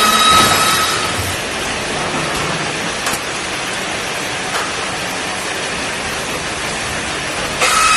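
Wood-processing machinery running with a loud, steady noisy din. A brief high-pitched whine sounds for about the first second, and another begins near the end.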